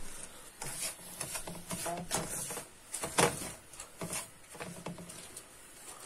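Wooden spoon stirring and scraping dry roasting semolina around a frying pan: a string of irregular short scrapes, the loudest about three seconds in.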